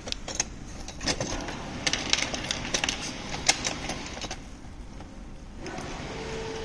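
Irregular light clicks and metal knocks of hands and tools working on a chrome rear luggage rack bracket as it is fitted, thinning out after about four seconds, with a faint steady tone near the end.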